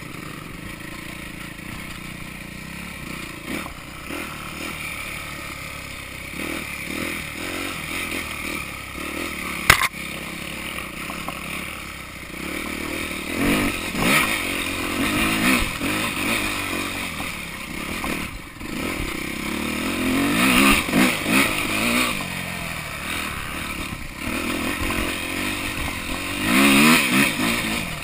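Yamaha YZ250F dirt bike's four-stroke single-cylinder engine revving up and down with the throttle, with chassis clatter. There is a sharp knock about ten seconds in, and the revving gets louder and busier from about halfway through.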